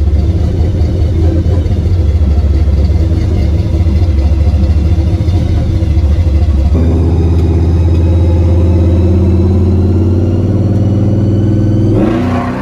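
Supercharged big-block Chevy V8 in a truck, under way on a new, not-yet-tuned EFI setup. The rough, heavy engine sound settles about seven seconds in into a steady, slowly rising note, then falls away near the end as the throttle comes off.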